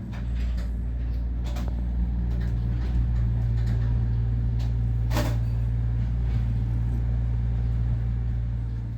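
Shiba Inu dog snoring while being petted: a steady low rumble, with a few faint clicks and a brief sharper sound about five seconds in.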